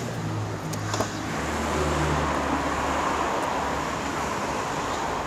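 A taxi door shuts with a sharp knock about a second in, then street traffic noise swells as a car drives past and slowly fades.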